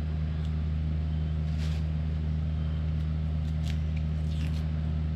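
Steady low motor or electrical hum at an even level, with a few faint light knocks and scrapes.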